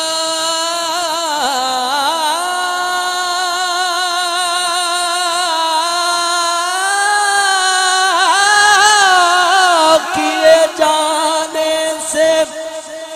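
A man's voice chanting a devotional kalam unaccompanied over a microphone and loudspeaker system, holding long ornamented notes that bend and waver in pitch. About ten seconds in the long line breaks into shorter phrases.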